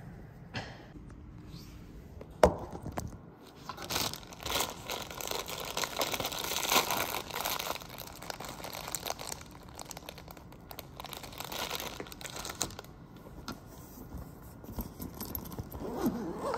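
Crinkling and rustling, like wrapping or packaging being handled, with one sharp click about two seconds in. The crinkling is densest from about four seconds in and thins out after about thirteen.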